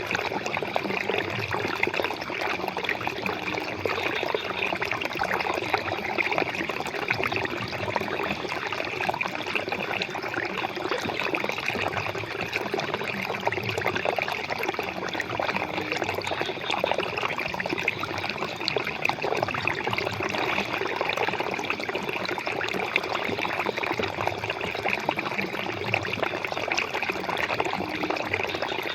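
Flowing water running steadily without a break, a continuous splashing rush.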